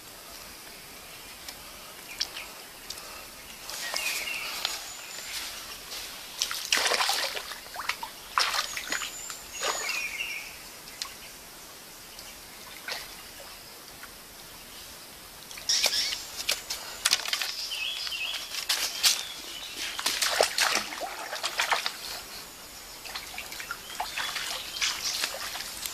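Hands splashing and sloshing in shallow stream water in irregular bursts, rinsing freshly cleaned catfish. Birds chirp briefly now and then.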